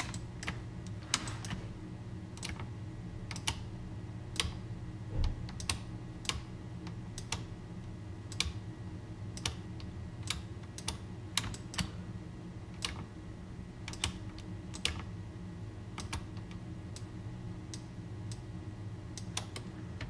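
Computer mouse and keyboard clicking at irregular intervals, roughly one or two clicks a second, over a steady low hum.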